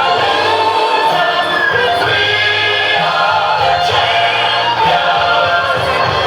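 Music with several voices singing together over a steady bass line.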